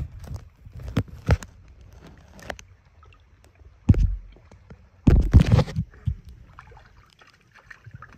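Lake water sloshing and splashing around a paddleboard, with scattered knocks as from paddle strokes. The loudest splashes come about four seconds and five seconds in.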